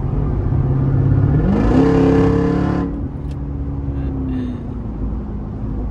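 Jeep Grand Cherokee Trackhawk's supercharged V8 accelerating hard: its pitch climbs steeply about a second and a half in and the sound is loudest for about a second, then it eases back to a steady cruise.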